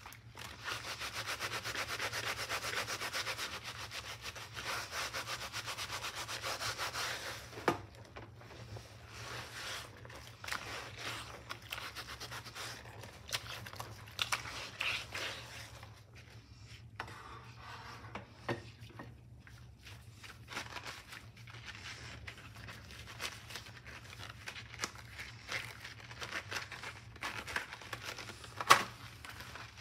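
Soapy cloth scrubbing a plastic cutting board in a sink of suds, steady and fast for about the first seven seconds, then softer stop-start rubbing by rubber-gloved hands. Short clicks now and then, and one sharp tap near the end.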